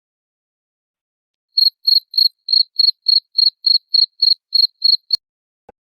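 A cricket chirping: a quick, even run of short, high, same-pitched chirps, about three and a half a second, stopping with a click.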